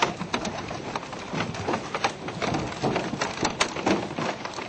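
Fish splashing and leaping at the water's surface beside a small boat: a fast, irregular patter of splashes and knocks.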